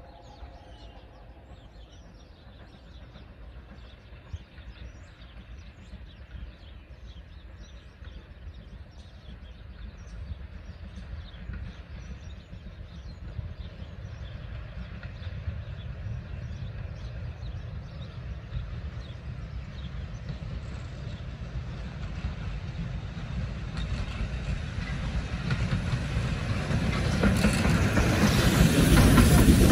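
BR Standard Class 5 steam locomotive hauling coaches, running tender-first, drawing steadily nearer: a low rumble that grows louder throughout and becomes loud in the last few seconds as the train passes close by.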